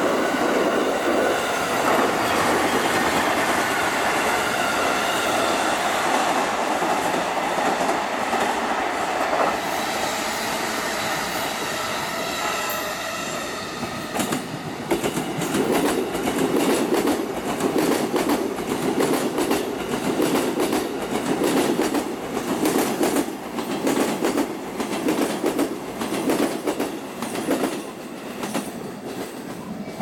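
JR electric commuter trains passing close by. For about the first half there is a steady rumble of steel wheels on the rails. Then a second train's wheels clack rhythmically over the rail joints.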